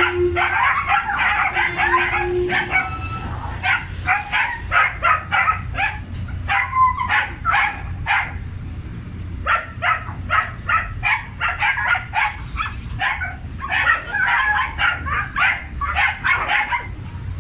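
A crowd of dogs barking and yapping in short, rapid, overlapping barks. The barking is densest at the start and again near the end.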